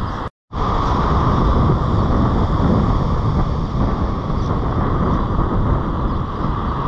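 Wind buffeting the microphone over breaking surf, a steady loud rush. The sound drops out completely for a split second near the start.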